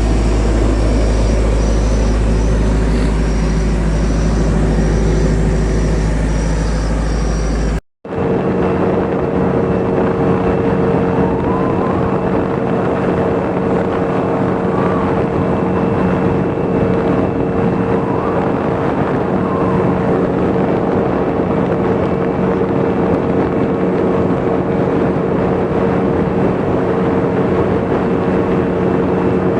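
An engine running at a constant speed, a loud and steady drone. About eight seconds in it cuts off abruptly and resumes as an even hum.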